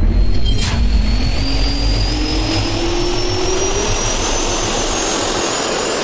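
Jet turbine spool-up sound effect: a loud roar over a deep rumble, with a whine that rises steadily in pitch throughout. A short sharp hit cuts through it under a second in.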